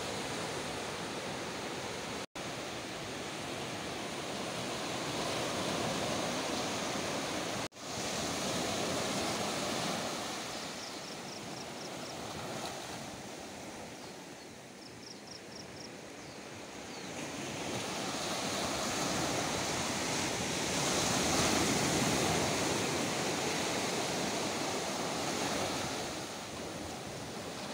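Sea surf breaking and washing up the shore, the rushing noise swelling and fading with the waves. The sound drops out suddenly for a moment twice in the first eight seconds, and a faint rapid run of high ticks comes twice in the middle.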